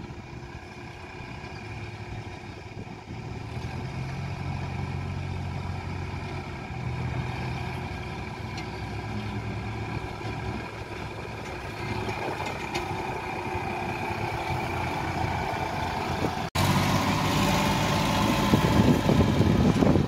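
Diesel engines of a backhoe loader and farm tractors running at a distance, a steady low hum. About three-quarters of the way through it cuts abruptly to a louder, closer sound of a loaded tractor and trolley driving off on a dirt track.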